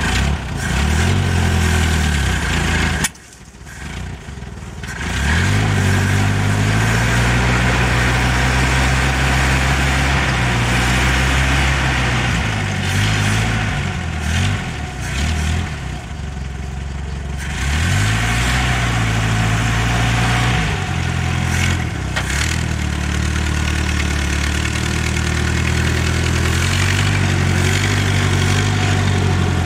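GAZ-69 jeep's four-cylinder flathead petrol engine running at low speed, its revs rising and falling several times as it creeps across rough ground, with a short dip about three seconds in.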